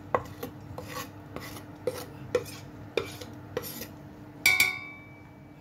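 Kitchen knife scraping and tapping chopped onion and carrot together on a tabletop: short scrapes about two a second. Near the end comes a single metal clang that rings on for about a second.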